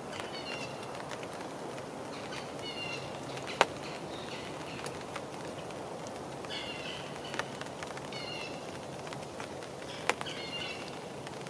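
Small birds chirping in short repeated phrases every second or two over a steady hiss of light rain. Two sharp taps, one about a third of the way in and one near the end, are the loudest sounds.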